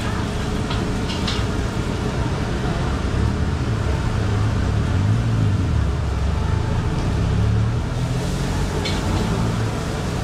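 Steady low rumble of street traffic with a few light clicks.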